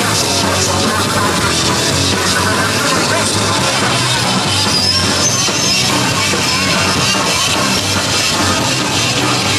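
Punk rock band playing live and loud, with drum kit, heard from within the crowd.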